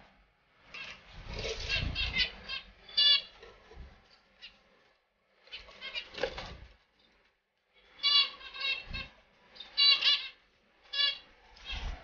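Small caged finches calling in bursts of short, repeated chirps, with a few low thuds among them and brief pauses.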